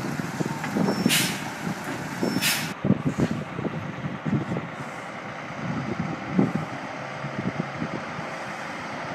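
Semi-trailer truck letting out two short, loud air hisses from its brakes about a second and two and a half seconds in, over the running diesel engine. After that, a quieter, more distant truck engine rumble.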